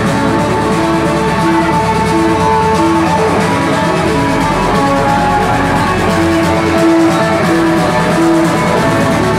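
Live rock band playing loud: electric guitars repeating a riff of short notes about twice a second under long held higher notes, with drums.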